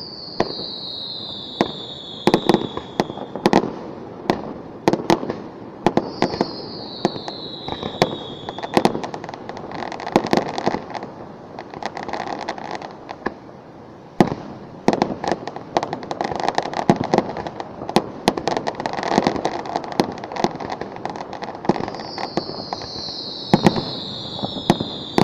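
Fireworks display: aerial shells bursting in a run of sharp bangs, with dense crackling through the middle. A falling whistle sounds three times: at the start, about six seconds in, and near the end.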